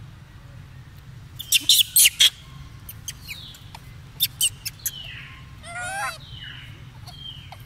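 Macaques giving high-pitched squeaks and chirps: a quick run of sharp squeals about a second and a half in, a few more around four seconds, short falling chirps, and one longer wavering call about six seconds in.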